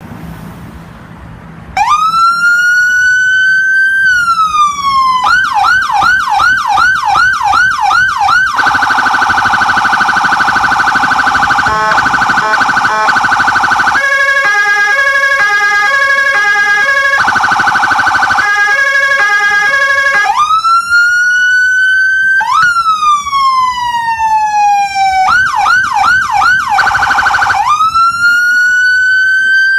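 Electronic emergency-vehicle siren cycling through its tones. It starts about two seconds in and sounds loud: a slow rising and falling wail, then a fast yelp, a steady harsh horn-like tone, and a quick alternating two-tone pattern, then wail and yelp again.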